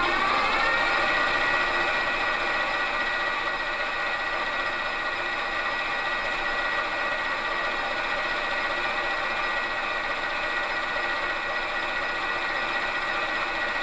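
Metal lathe running with a high, steady whine. It finishes rising in pitch as it comes up to speed about half a second in, then holds speed while a round insert shapes the hemispherical end of a small pin.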